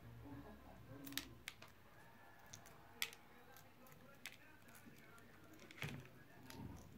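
Faint, scattered clicks and crackles of a hard-boiled egg's shell being picked off by hand, the loudest a single sharp click about three seconds in.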